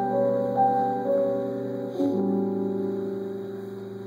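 Live band's keyboard playing sustained chords in an instrumental gap between sung lines. A new chord is struck about two seconds in and left to ring and fade.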